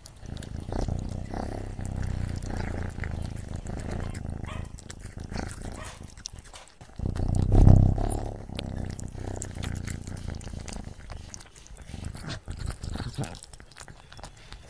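Kitten eating wet tuna cat food from a bowl close to the microphone: wet chewing, smacking and licking with many small clicks over a low rumble, which swells briefly a little before eight seconds in.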